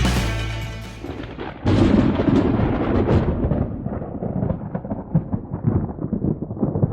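Soundtrack music fading out, then about a second and a half in a thunderclap breaks suddenly and rolls on as a rumble with many small cracks, slowly dying away.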